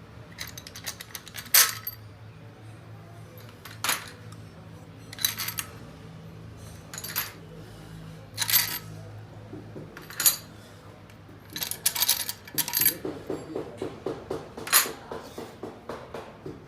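Metal tools or parts being handled: sharp metallic clinks and clatters at irregular intervals, about a dozen in all. A low steady hum runs underneath and fades out about two thirds of the way through.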